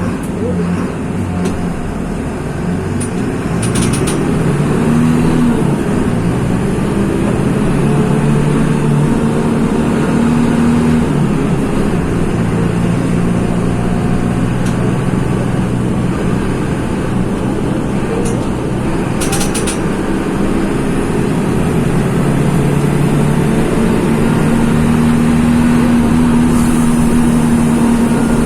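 Mercedes-Benz OF-1724 bus's OM-926 LA six-cylinder diesel running under way, its engine note rising and falling several times. A few brief high clicks sound in between.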